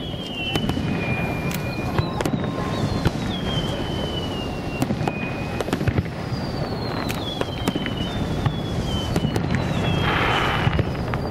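Aerial fireworks bursting in a running series of sharp bangs. Several whistles drop in pitch through the bangs, and there is a short burst of crackling near the end.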